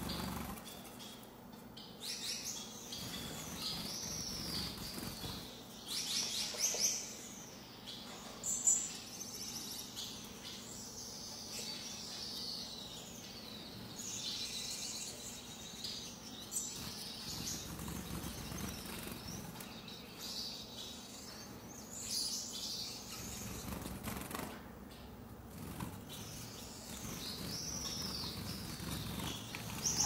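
A flock of Gouldian finches making many short, high chirping calls that overlap one another, with now and then a brief flurry of wing flaps as a bird flits between perches.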